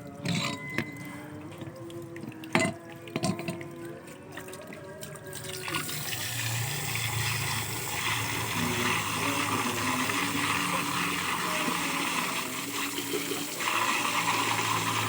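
A few clicks and knocks of handling, then water running steadily from about six seconds in, growing louder about eight seconds in and again near the end.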